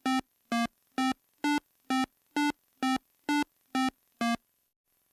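Electronic music: a short, bright synthesizer note repeated about twice a second, ten times in a row, then stopping near the end.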